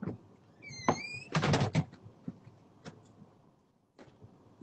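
A door opening: a brief high squeak about a second in, then a short clatter of knocks and rattles, followed by a few faint clicks.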